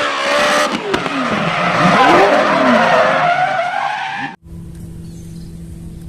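Classic Volkswagen Beetle rally car's air-cooled flat-four engine revving hard as the car slides along a gravel stage, its pitch rising and falling with throttle and gear changes, over the noise of gravel and tyres. It cuts off suddenly about four seconds in, leaving a low steady hum.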